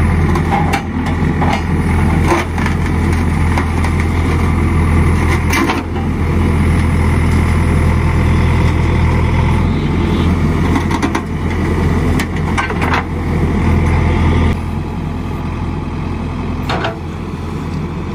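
Diesel engine of a JCB 3DX backhoe loader running steadily with a deep hum while the machine moves into position, with a few sharp knocks and clanks. About three-quarters of the way through, the engine sound drops to a lower level.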